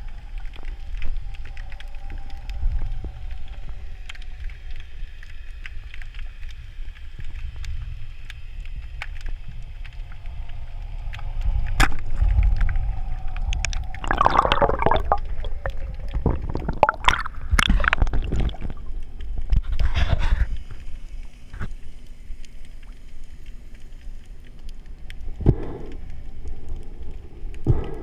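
Underwater sound heard through the camera: a steady low rumble with scattered small clicks, broken past the middle by several loud gurgling bursts of bubbles.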